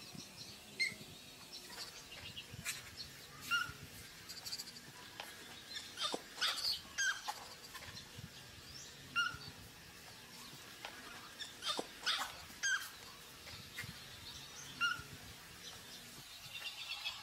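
Baby macaque making short, high whimpering squeaks every two or three seconds, with scattered clicks between them.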